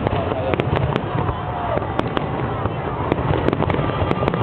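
Fireworks display going off: a rapid, irregular run of sharp cracks and bangs over a steady rumble of further bursts.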